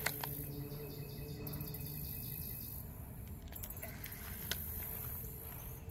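Outdoor summer ambience: a steady high-pitched insect chorus that swells and drops a few times, over a low steady hum. Two sharp clicks stand out, one right at the start and one about four and a half seconds in.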